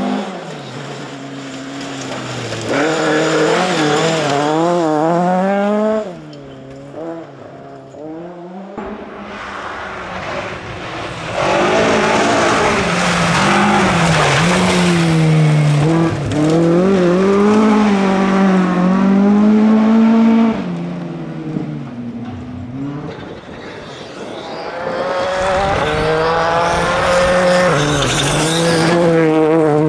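Rally cars on a loose gravel stage passing one after another, among them a Fiat 131 Abarth, a Ford Escort Mk2 and a Ford Fiesta. Their engines rise and fall in pitch through hard acceleration and gear changes, with gravel noise from the tyres under the engine note.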